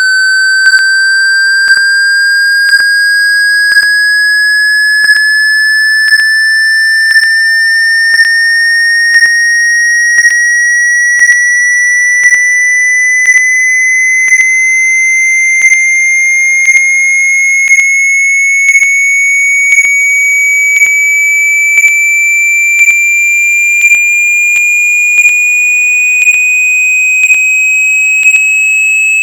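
Hearing-test sine tone sweeping slowly and steadily upward in pitch, from about 1,500 to about 2,600 hertz, with a short tick about once a second.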